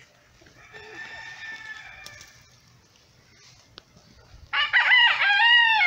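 A rooster crowing loudly, starting about four and a half seconds in and running for about a second and a half. A fainter drawn-out call comes in the first two seconds.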